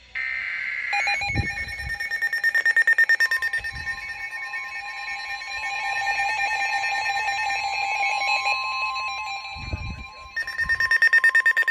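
Several NOAA weather alert radios sounding a warning at once. A buzzy digital data burst opens, then come steady alert tones, including the long 1050 Hz weather-radio warning tone, under fast pulsing beeps from the receivers' own alarms. The beeping grows louder again near the end, and there are a few low thumps.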